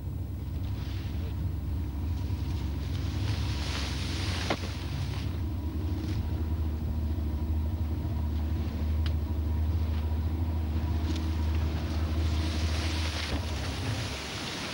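Small boat's outboard motor running steadily with a low drone that drops away near the end, with wind noise on the microphone.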